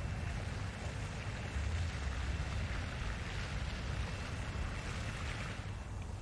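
Steady low wind rumble on an outdoor microphone, with a faint even hiss above it.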